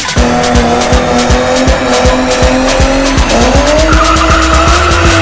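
A BMW's engine held at high revs during a burnout, its pitch dipping and climbing again about three seconds in. The tires squeal through the last second or so, over music with a steady beat.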